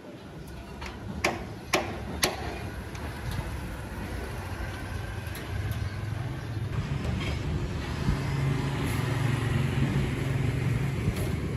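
Three sharp knocks about half a second apart, then street traffic rising to a steady engine drone as a motorbike passes on the street below.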